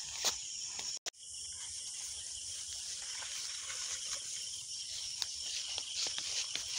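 Steady high chirring of insects, with soft scattered footsteps in grass; the sound cuts out briefly about a second in.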